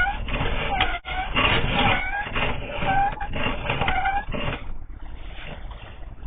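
A cat meowing repeatedly over a steady low hum; the meows stop about two-thirds of the way through.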